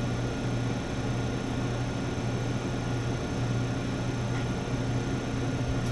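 Steady low hum with an even hiss and a few faint steady high tones, unchanging throughout: laboratory equipment running.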